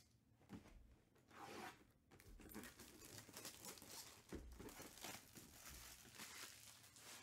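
Faint tearing of a cardboard box being opened, then the crinkle of a plastic bag being handled and pulled out of it. A few separate rustles come first, becoming a more continuous crinkling from about two seconds in.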